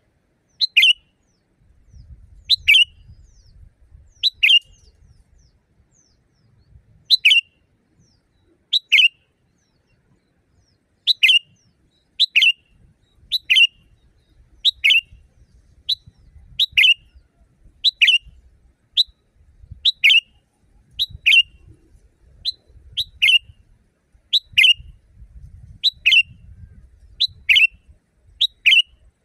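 Sooty-headed bulbul (kutilang) calling loudly: short, sharp call notes repeated every second or two, coming more often and sometimes in quick pairs in the second half.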